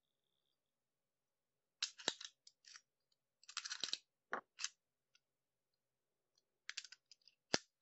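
Restored padlock being handled: its steel shackle and key giving small metallic clicks and rattles in three short clusters, with a sharp snap about two seconds in and another near the end.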